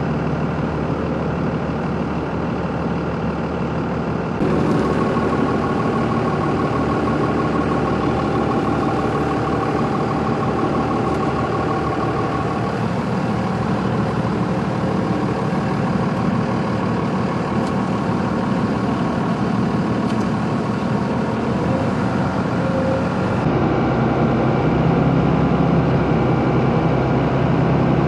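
A vehicle engine running steadily with road noise. The sound changes abruptly twice, about four seconds in and again near the end.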